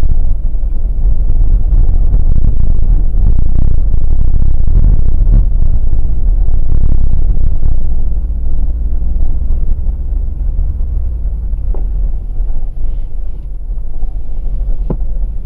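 Steady low road and tyre rumble inside the cabin of a 2020 Volkswagen Passat Variant 1.6 TDI cruising on a rain-wet road, easing somewhat about halfway through.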